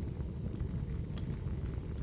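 Wood fire burning: a steady low rumble of flames with scattered small crackles and pops, one sharper pop about a second in.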